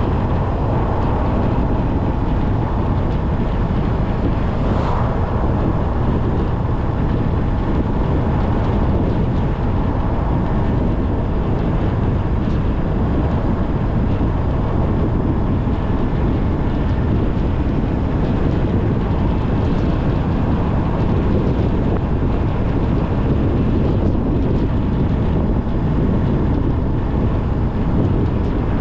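Steady rumble of a car on the move: engine and tyre noise on the road, even and unbroken.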